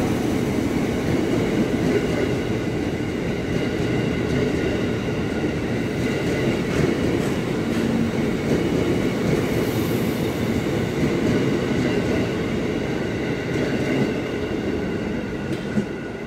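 KRL Commuter Line electric multiple unit running past on the adjacent track: a steady rumble of steel wheels on rail with a faint, steady high whine over it. It eases off near the end as the last car goes by.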